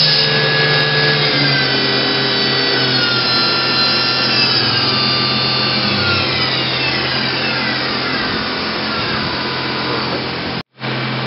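Mazak VTC200C vertical machining center traversing an axis: a steady servo whine with a scraping rub of the sliding steel way covers, and several whine tones falling slowly in pitch over a few seconds. The rub is only way-cover noise, not a fault in the drive. The sound breaks off abruptly for a moment near the end.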